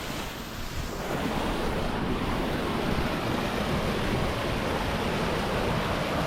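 Steady rush of water from a waterfall pouring into a swimming hole, louder from about a second in.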